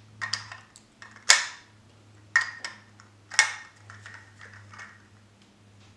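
Metal bullet-shaped whiskey stones clicking against each other and their plastic revolver-cylinder holder as they are pushed in and pulled out: a handful of sharp clicks about a second apart, the loudest a little over a second in, then a few lighter ticks.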